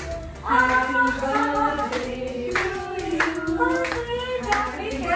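A group of people singing with long held notes, with hands clapping along.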